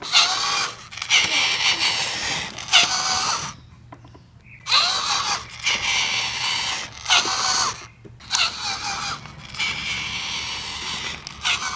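A remote-control Thomas the Tank Engine toy train's small electric motor and plastic gears whirring as it drives along, in three runs with short pauses between.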